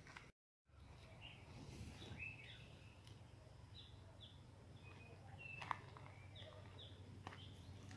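Faint outdoor ambience with short bird chirps scattered through it over a steady low rumble. The sound cuts out completely for a moment just after the start, and there is one sharp click a little before six seconds.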